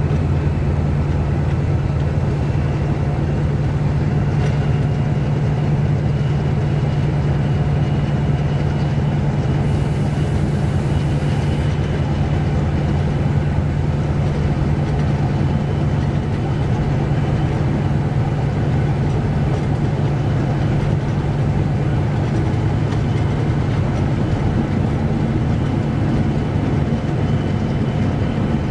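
Class 68 diesel locomotive running at a steady, unchanging note under power, heard from the train it is hauling, over the train's running noise.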